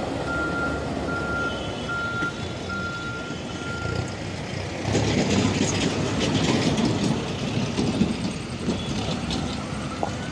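Reversing alarm on a heavy vehicle beeping at a steady pace, about one beep every two-thirds of a second, over diesel engine rumble; the beeps stop about four seconds in, and the machinery then grows louder and rougher, with clattering.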